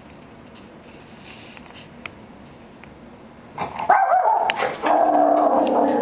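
A dog whining and barking in loud, drawn-out cries, starting about three and a half seconds in after a quiet stretch. It is fussing to be let outside.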